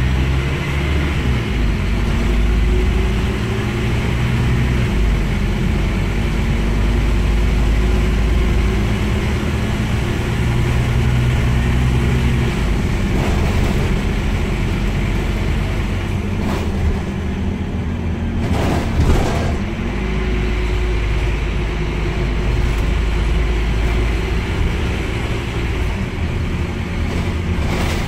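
Scania N230UD double-decker bus heard from inside the passenger saloon while it drives: a steady engine drone whose pitch shifts about halfway through. There is a brief louder rush of noise about two-thirds of the way in.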